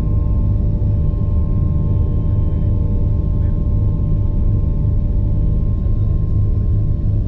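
Bell 429 helicopter's twin turboshaft engines and rotor running steadily: a loud low rumble under a steady turbine whine.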